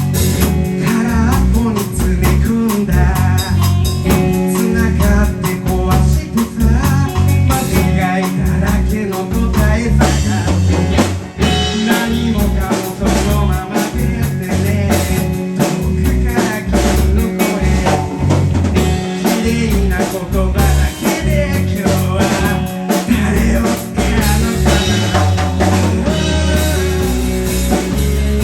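Live rock band playing, with a busy drum kit over bass and guitar.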